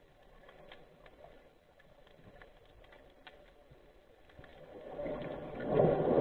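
Underwater ambience heard through a submerged camera: sparse sharp clicks and crackles over a faint hiss, then a rush of moving water that swells over the last second and a half.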